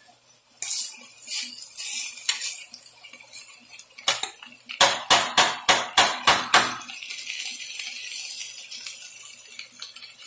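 Chicken, bell peppers and onion sizzling in a stainless steel pan, with a metal utensil knocking and clattering against the pan. About halfway through comes a quick run of about eight strikes, roughly four a second.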